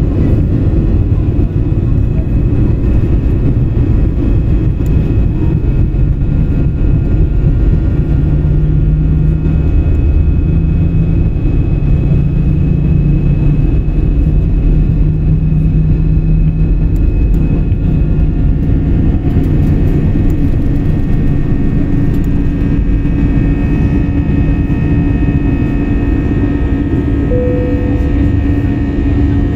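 Airliner's engines at takeoff power, heard from inside the cabin: a loud, steady noise with a deep rumble underneath. A steady hum and higher whining tones grow stronger over the last third as the plane climbs away.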